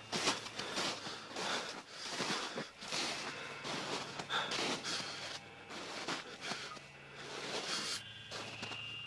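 People walking through woods in the dark: irregular rustling and crunching footsteps with heavy breathing.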